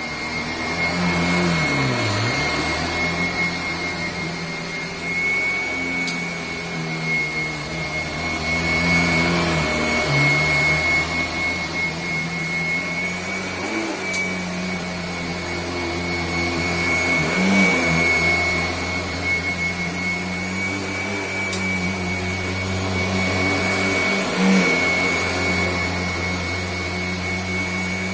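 Kirby vacuum cleaner running, a steady high whine over a low motor hum. The low hum briefly dips and recovers several times.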